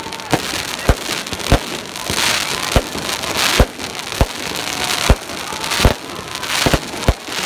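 Aerial fireworks show: about a dozen sharp bangs from shells bursting, one every half second to a second, over a steady crackling hiss of sparks that is thickest in the middle.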